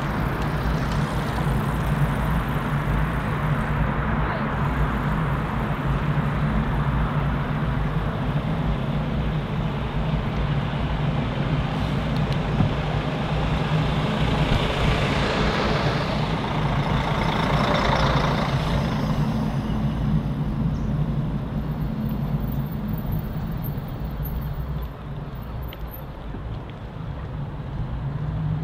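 City road traffic with a heavy vehicle's engine running steadily underneath. A passing vehicle swells to a peak around the middle and fades away before the last third.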